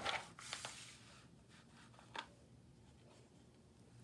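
A page of a softcover picture book being turned by hand: a brief papery rustle and flap in the first second, then a faint click about two seconds in.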